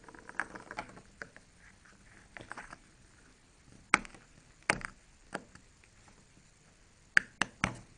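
A small plastic toy suitcase handled and opened by fingers: faint rustling at first, then sharp plastic clicks and taps, one every half second or so, with three quick clicks near the end.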